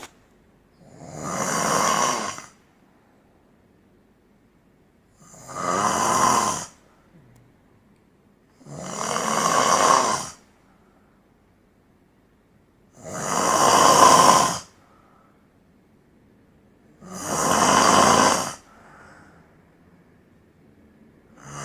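A man snoring loudly in his sleep: five long snores about four seconds apart, each swelling louder before it breaks off.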